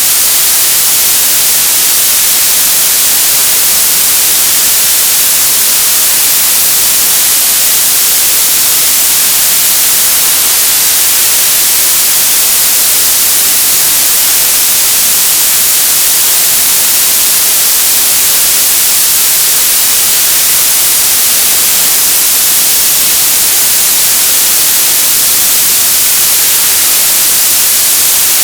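Television static: loud, steady hiss of an untuned TV, strongest in the high frequencies and unchanging throughout.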